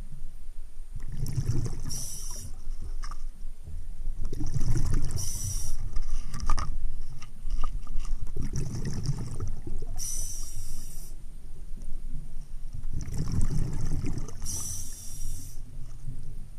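Diver's breathing heard underwater through the camera housing: a low bubbling rush, then a high hiss, repeating about every four seconds.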